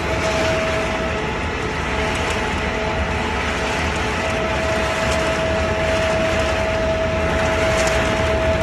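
Wood pellet production line machinery running steadily: a dense, even machine noise with a low hum and a steady whine that fades out about a second in and returns about four seconds in.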